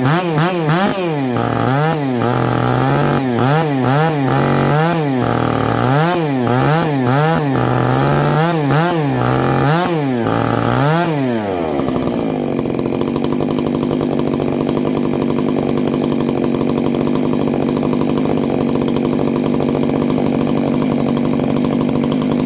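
Stihl MS661C two-stroke chainsaw revved up and down in quick repeated throttle blips for about twelve seconds, then settling to a steady idle.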